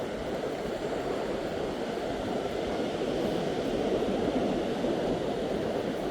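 Steady rushing noise of surf and wind on an open beach, even throughout with no distinct events.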